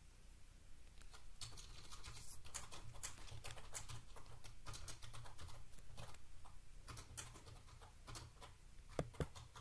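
Pokémon trading cards being handled: a run of light clicks and papery slides of card against card, with two sharper taps near the end.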